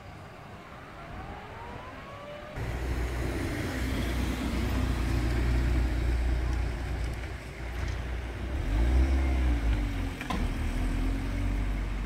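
A car engine running close by, louder from about two and a half seconds in, its pitch rising and falling as it moves, with a single click shortly after the ten-second mark.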